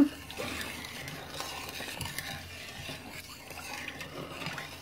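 Wooden spoon stirring thickening maicena (cornstarch-and-milk pudding) in a metal pot over medium heat, a steady stirring noise without pauses. The mixture is kept moving so it thickens without forming lumps.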